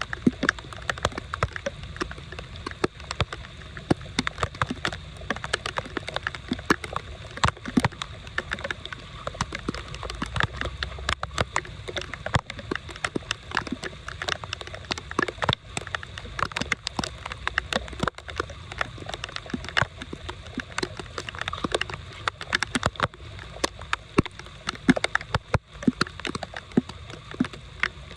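Water gurgling and sloshing, with a dense run of irregular sharp splashes and ticks.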